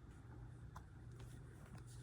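Near silence: faint room tone with a steady low hum and a few faint ticks.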